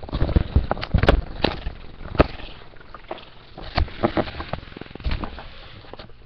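Handling noise from the recording device being picked up and moved: a string of irregular knocks and bumps with rustling between them.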